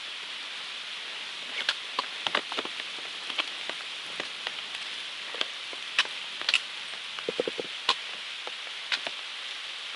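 Steady rain falling on the forest around the trail, an even hiss with scattered, irregular sharp taps of drops or hits on rock.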